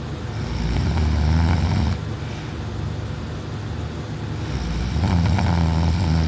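A person snoring loudly in deep sleep, lying on the back with the mouth open: two long snores, about four seconds apart, with quieter breathing between.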